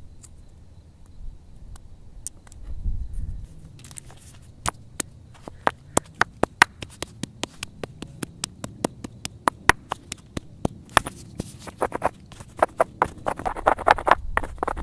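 Hand stone pounding shelled acorns in a bedrock mortar hole: sharp knocks of stone on rock and nut, about two a second, starting about four seconds in. Near the end they give way to a denser gritty crunching as the kernels are crushed into meal.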